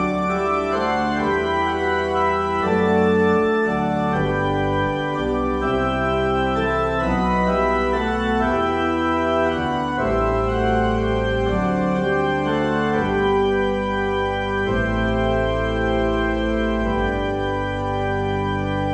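Church organ playing a hymn tune in full sustained chords over a deep bass line, the chords changing about every second.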